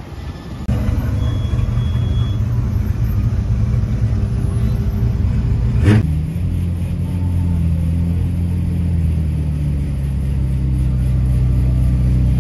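Car engines running steadily at low revs, their low hum starting suddenly just under a second in. About six seconds in there is a single sharp knock, and the engine note shifts a little lower after it.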